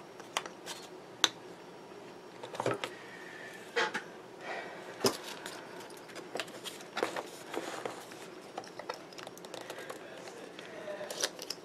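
Metal binder clips being fitted onto the edge of a hardbound journal's pages: scattered sharp clicks among paper rustling and handling.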